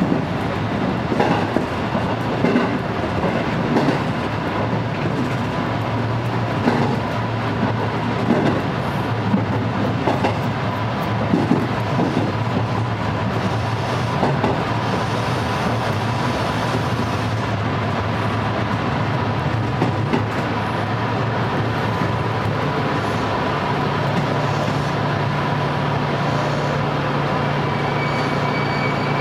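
Electric commuter train heard from inside, rolling with the clickety-clack of wheels over rail joints and a steady whine as it slows into a station. The clicks die away a little over two-thirds of the way in as it comes to a stand, leaving the steady hum of the stationary train's equipment.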